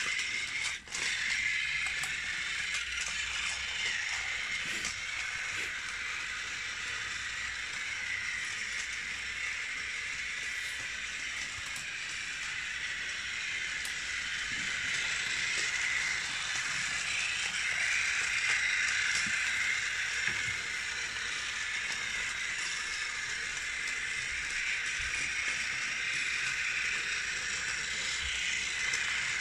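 Battery-powered Takara Tomy Plarail toy locomotive running round plastic track: a steady high whir of its small motor and gears, with light clicks from the wheels, swelling slightly at times.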